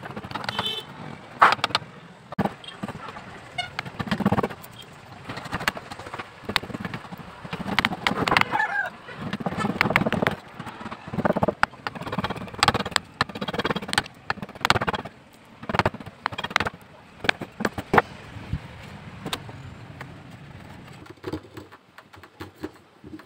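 Steel chisel shaving a wooden knife handle clamped in a bench vise: irregular scraping cutting strokes, each about half a second long, with sharp knocks of tool on wood and metal between them.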